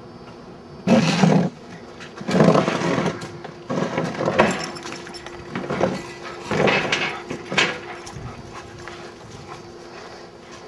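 Dogs growling during rough play: five loud bursts, each half a second to a second long, in the first eight seconds.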